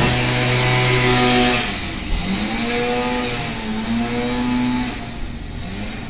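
Small yard-maintenance engine, which sounds like a weed whacker, running very loud close by. Its pitch rises and falls as it revs, and it eases off a little after about a second and a half.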